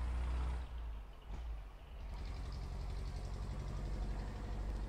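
A low, steady rumble with a faint hiss above it.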